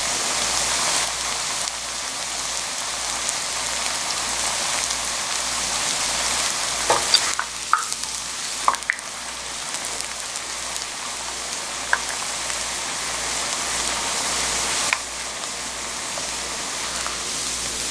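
Hot oil sizzling steadily around a large sheet of dried scorched rice crust (nurungji) frying in a shallow layer of oil in a small frying pan, the rice puffing up at once in the high heat. A few light clicks sound near the middle.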